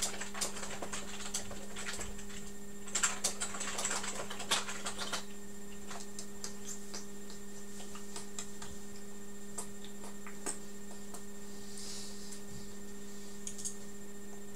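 Scattered light clicks and taps over a steady low hum; the clicks come thickest in the first five seconds and grow sparse after.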